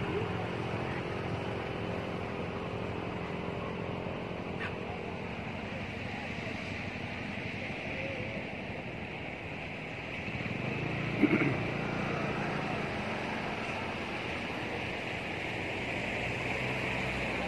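Steady outdoor background noise, a low rumble with a hiss over it, and one brief sharp sound about eleven seconds in.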